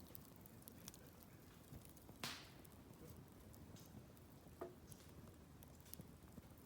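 Wood bonfire crackling faintly, with scattered small pops and one louder, hissing pop about two seconds in.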